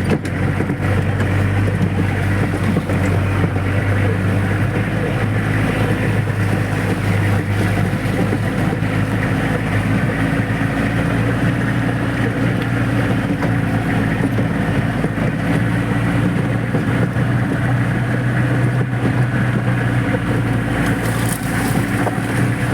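Off-road jeep's engine running steadily under way, with wind rushing over the microphone.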